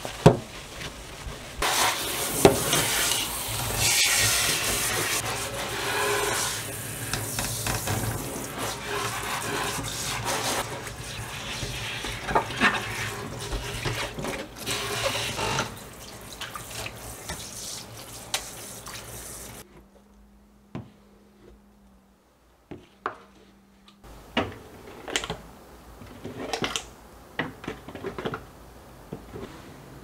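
Tap water running from a kitchen faucet and splashing into a stainless steel sink, loud from about two seconds in and easing off around sixteen seconds. After a short near-silent gap come a series of light clicks and taps.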